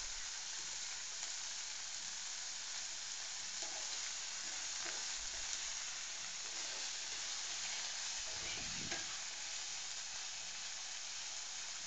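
Chopped onions and cashews sizzling steadily in hot oil in a nonstick kadai while a spatula stirs them, with a few faint scrapes.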